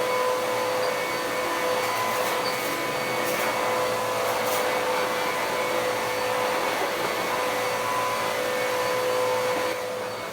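Dirt Devil PowerMax Pet vacuum cleaner running on carpet: a steady motor whine over a rush of air, dropping somewhat in level near the end.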